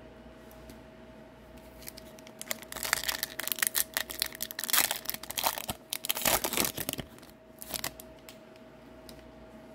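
Foil wrapper of an Upper Deck hockey card pack crinkling and tearing as it is ripped open by hand. The crackling starts a couple of seconds in and lasts about four seconds, followed by a brief crinkle a second later.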